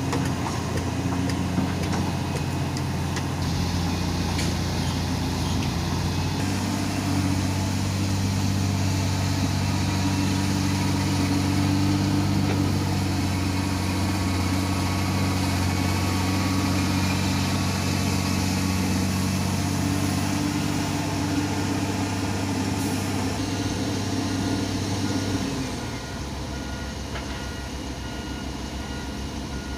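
Heavy diesel engine of a Komatsu excavator working under load as it digs and loads soil into a dump truck, its note shifting as the hydraulics work. Near the end the engine eases off and a reversing beeper starts beeping steadily.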